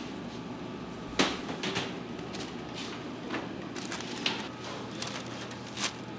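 Kitchen clatter: about six sharp knocks and clicks, the loudest about a second in, over a steady machine hum.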